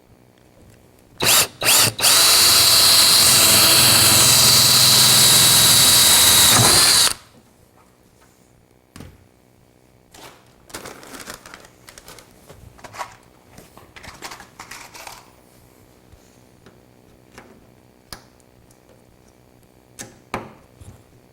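Power drill blipped twice, then run steadily for about five seconds with a constant high motor whine before stopping abruptly, drilling a quarter-inch hole for a metal panel clip. Faint clicks and handling noises follow.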